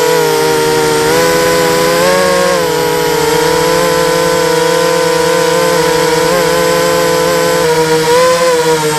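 250-size FPV racing quadcopter's brushless motors and propellers buzzing in flight. The pitch drops slightly at the start, rises briefly about two seconds in, then holds steady.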